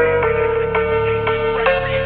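Background music: a melody of plucked or struck notes over a held drone, changing note every quarter to half second.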